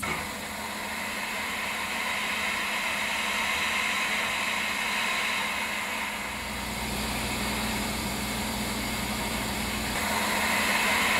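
Compressed-air jet laden with flour rushing from a 2.5 cm nozzle at 6 kPa valve pressure: a steady hiss. A low rumble joins it around six seconds in, and near the end the hiss grows louder and brighter. The doubled pressure raises the jet velocity, which raises the frequency of the jet noise.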